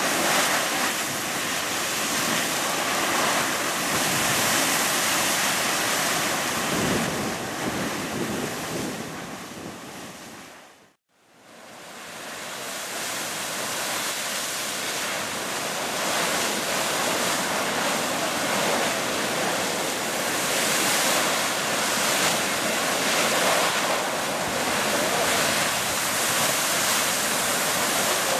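Fountain Geyser erupting: a steady rush of splashing water and venting steam, with wind buffeting the microphone. About eleven seconds in the sound fades away to silence and swells straight back.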